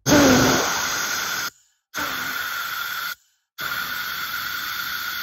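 Air blown through a 3D-printed 1:10 scale turboexpander model in three hissing blasts of about a second and a half each, separated by short pauses, with a steady high tone over the hiss. The first blast starts loudest, with a brief falling tone at its start.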